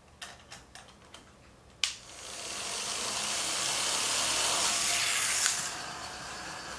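A few plastic clicks of LEGO parts, then a hand-held LEGO motor spinning up a LEGO flywheel with a hissing whir that grows louder for about three and a half seconds. A click near the end as the flywheel train is let go, then a quieter steady whir as it runs along the plastic track.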